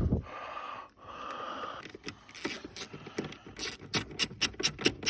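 Hands working on a car's wiring loom and plastic trim: rustling and scraping, then, from a little past the middle, a fast, even run of sharp ratcheting clicks, about five a second.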